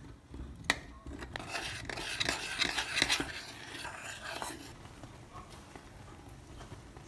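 Kitchen utensils clinking and scraping against dishes: a sharp click about a second in, then a couple of seconds of busy scraping and clatter that dies down.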